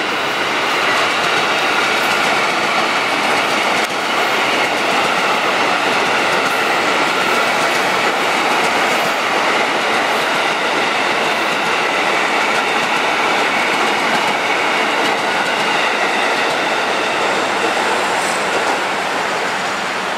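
KRL Commuter Line electric multiple-unit train running past close by: a steady rush of wheels on the rails with a few held tones running through it, broken briefly about four seconds in.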